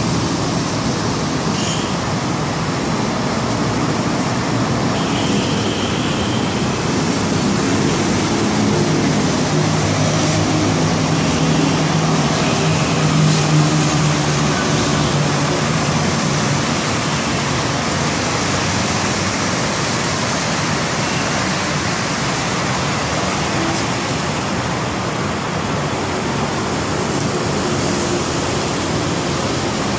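Steady road traffic noise, with a vehicle engine humming louder for several seconds in the middle.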